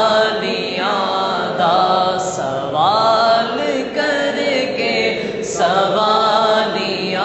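Unaccompanied Durood o Salam, a devotional salutation to the Prophet, chanted by a young male voice with no instruments. The voice holds long notes that bend and glide in pitch.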